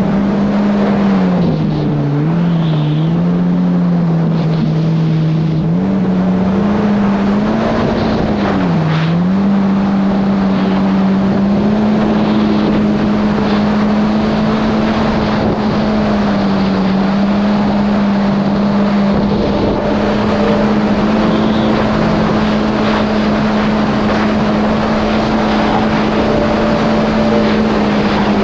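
2019 Yamaha GP1800R SVHO jet ski's supercharged four-cylinder engine running at speed over the rush of water and wind. The engine note drops and recovers a few times in the first ten seconds as the throttle eases and comes back on, then holds steady and a little higher.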